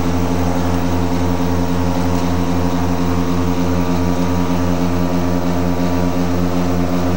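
Light plane's engine and propeller running steadily at full takeoff power during the takeoff roll, heard from inside the cockpit.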